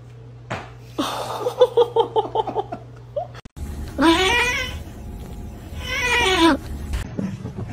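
A cat yowling: one long, wavering call lasting about two and a half seconds, starting about four seconds in. Before it comes a quick run of short, pitched pulses.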